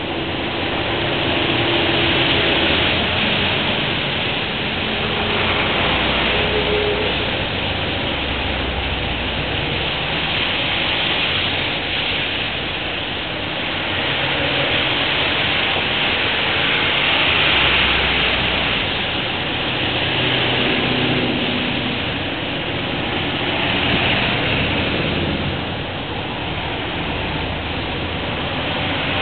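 Traffic passing on a rain-wet road: a steady hiss of tyres on wet pavement that swells and fades as each vehicle goes by, about four times, with a low engine hum underneath.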